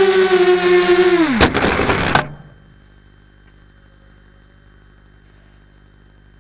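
Racing quadcopter's brushless motors and propellers whining steadily, then dropping in pitch as they throttle down, followed by a sharp knock and a brief clatter as the drone touches down in a pickup truck's bed, after which the motors cut off suddenly.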